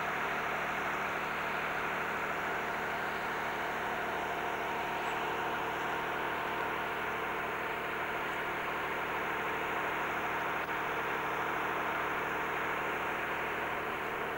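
An engine running steadily, a constant hum made of several fixed low tones over an even rush of noise, with no change in speed.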